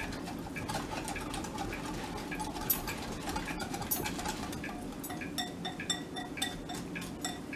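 A metal utensil stirring thick tahini dressing in a glass bowl, clinking and tapping against the glass. The clinks become a quick even rhythm of about three a second from about five seconds in.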